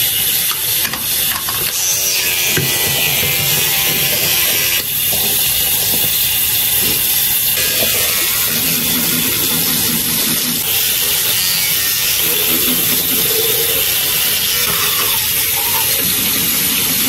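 Manual toothbrush scrubbing against teeth, a steady scratchy rasping.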